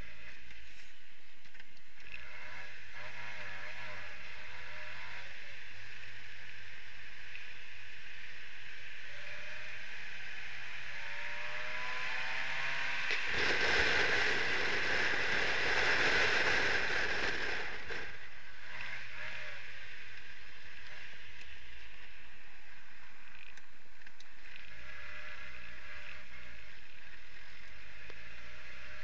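Triumph Herald 1200's 1147 cc four-cylinder engine running as the car drives, heard from inside the cabin along with road and wind noise. The engine note rises a couple of times as it pulls. For about five seconds in the middle, the road noise swells loud and full as the car passes through a tunnel.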